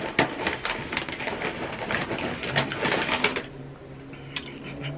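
Close-up chewing of a hard, crunchy tortilla chip: dense crackling crunches that stop about three and a half seconds in.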